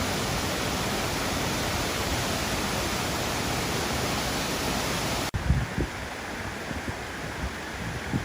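Waterfall pouring, a loud, even rush of falling water. About five seconds in it cuts to a duller rush with wind buffeting the microphone.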